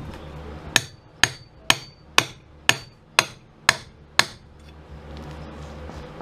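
A hand hammer struck eight times, about two blows a second, some with a brief metallic ring, while working fasteners out of the camper's old wooden floor.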